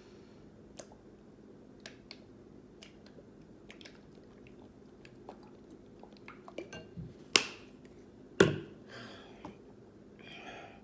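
A squeeze bottle of hot sauce shaken and squeezed over a glass bowl of noodles: scattered faint clicks and taps. Then two loud, sudden squirts of sauce about seven and eight seconds in.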